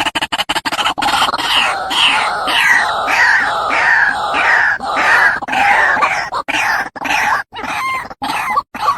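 White-breasted waterhen calling, a lure recording: a fast run of short clipped notes, then loud repeated harsh calls two or three a second, breaking into shorter separate notes near the end.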